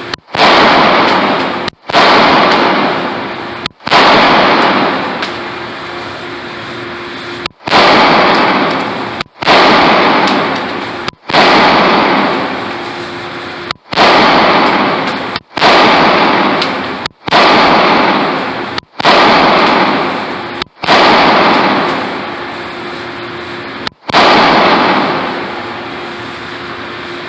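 Walther PPQ pistol fired about a dozen times, shots one to two seconds apart with a longer pause near the middle and another late on. Each very loud shot trails off in a long ring in the indoor range.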